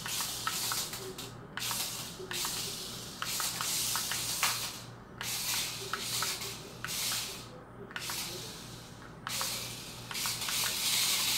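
Small Adventure Force Stunt Runner RC stunt car driving on a tile floor: its tiny electric drive motors whir in bursts, cutting out briefly a few times, with light clicks as the car knocks on the tiles.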